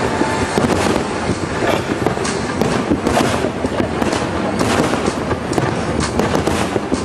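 Fireworks display, many shells bursting with bangs in quick, irregular succession that overlap into an unbroken din.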